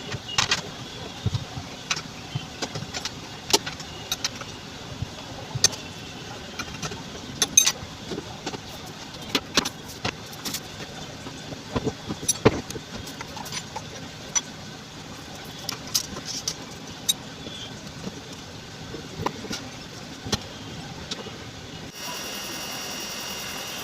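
Irregular clicks, knocks and metallic clinks of tools and parts being handled during washing machine repair work, over a steady low background noise. Near the end the sound changes abruptly to a steadier noise with faint tones.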